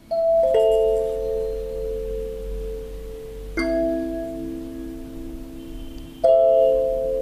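Sansula, a kalimba-type thumb piano, its metal tines plucked in three groups of notes about three seconds apart, each group left to ring on and fade slowly.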